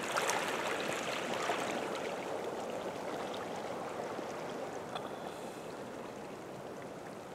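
Shallow stream running over pebbles: a steady rush of water with small splashes, growing slightly quieter.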